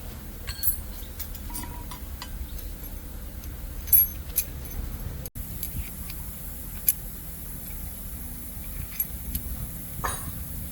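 Scattered metallic clinks and taps of hand tools and metal parts, the loudest about four seconds in, over a steady low hum.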